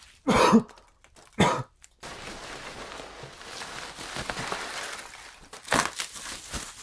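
Two short throat-clearing noises from a person, then packing peanuts rustling as a hand digs into a box, and bubble wrap crinkling in short crackles as a wrapped instrument is lifted out.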